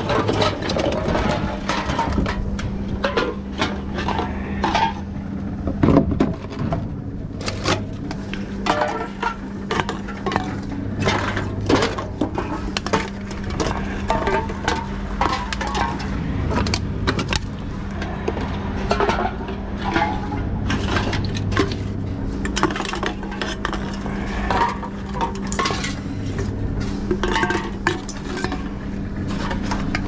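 Empty drink cans, plastic bottles and cartons clattering and clinking as they are handled in a wire shopping trolley and fed one after another into a reverse vending machine for container deposits, with many short knocks throughout. Under it runs a steady hum from the machine's conveyor.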